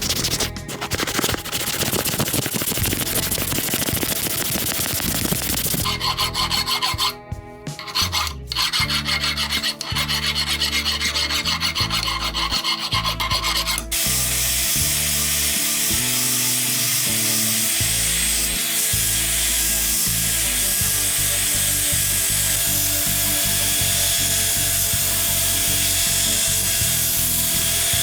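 Abrasive hand work on the hammer: repeated rasping, rubbing strokes of filing or sanding, changing in texture a few times.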